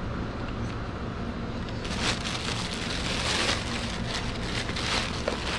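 Clear plastic shipping bag crinkling and rustling as it is pulled off a potted blueberry bush, starting about two seconds in. A steady low hum runs underneath.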